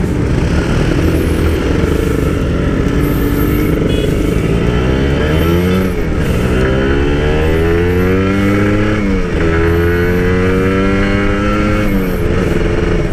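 Two-stroke motorcycle engine accelerating on the road, its pitch climbing, dropping sharply at a gear change about six seconds in and again about nine seconds in, then holding high and easing off near the end, with steady wind rush.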